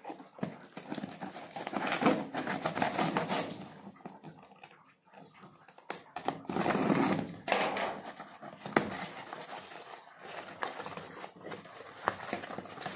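A knife scraping and cutting packing tape on a cardboard box, then the tape ripped off and the cardboard flaps pulled open, in spells of scraping and tearing with a couple of sharp clicks.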